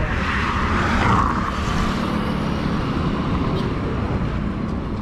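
Kawasaki Versys 650's parallel-twin engine running steadily under way, with road and wind rush on an action camera. A rushing hiss swells about a second in and fades.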